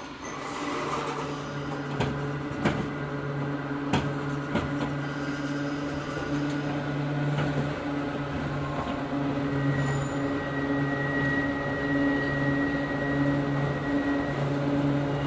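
Inside a Hakone Tozan Railway Moha 1 nose-suspended-motor railcar: a steady low electrical hum that drops in and out, with a few sharp knocks in the first few seconds. A thin high whine joins about ten seconds in and lasts a few seconds.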